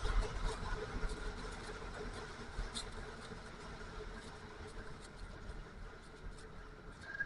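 Snowmobile engine running steadily, gradually getting quieter, with faint scattered clicks.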